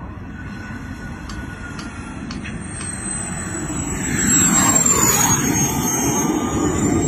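Radio-controlled model jet landing: a high engine whine over a rush of air that swells as it touches down about four seconds in. The whine drops in pitch as the jet goes past and rises again near the end.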